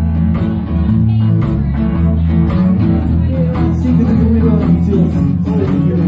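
Live rock band playing: electric and acoustic guitars over a strong low end and a steady beat.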